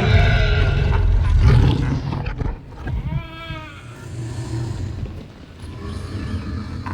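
Film dinosaur vocalizations built as sound effects: a loud bellowing call in the first second and a half, then a warbling, wavering cry around three seconds in, followed by lower growls.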